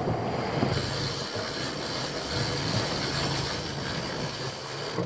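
Sailing yacht under way on its engine: a steady engine drone with water rushing along the hull and wind noise on the microphone.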